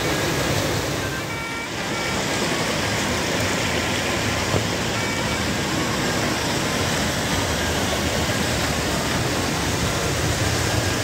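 Waterfall about 12 m high pouring into its plunge pool: a loud, steady rush of falling water that dips briefly about a second and a half in.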